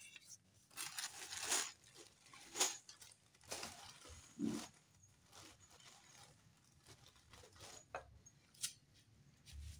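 Quiet handling noises from assembling a flat-pack particleboard desk: a plastic bag of hardware rustling and panels being shifted, with a few short scuffs and clicks at irregular moments and one dull thud near the middle.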